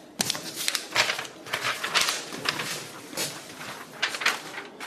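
Rustling of paper and clothing as people move, a string of short irregular crackles and scrapes.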